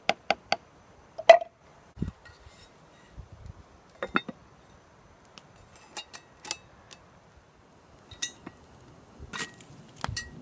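Cast iron Dutch oven being handled: a spoon knocks against the pot while stirring chili, then the iron lid is set on and the wire bail handle clinks. Scattered sharp knocks and clinks, the loudest about a second in with a short ring.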